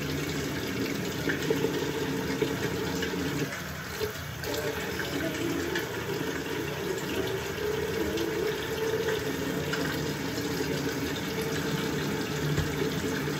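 Bathroom sink faucet running steadily into the basin, briefly quieter about four seconds in.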